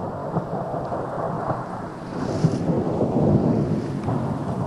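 Wind buffeting the microphone aboard a small sailboat under sail, a dense low rushing noise with water splashing past the hull. It grows a little louder about two seconds in.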